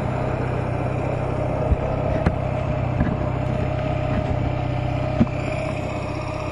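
Honda Nighthawk 250's air-cooled parallel-twin engine running steadily at a constant speed, with a few light knocks along the way.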